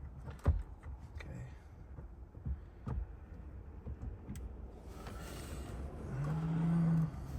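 Light knocks and clicks of parts being handled as a steering wheel is worked onto its column. Near the end comes a rustling hiss, then a low hum lasting about a second that rises slightly in pitch and cuts off abruptly.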